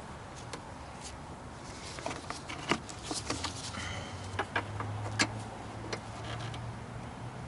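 Hand tools and metal hardware clicking and tapping while a truck battery's hold-down is fitted and tightened, in scattered irregular clicks, with a faint low hum through the middle.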